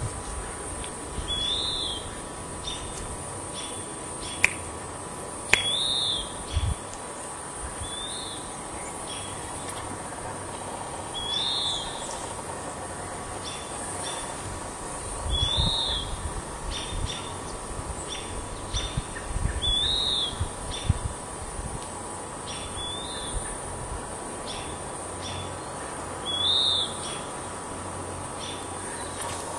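A bird repeating a short whistled note that rises and falls, seven times at intervals of a few seconds.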